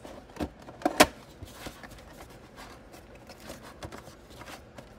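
Cardboard Funko Pop! box with a clear plastic window being handled and its top flap pried open. There are a few sharp snaps in the first second, the loudest about a second in, then light crackling and rustling.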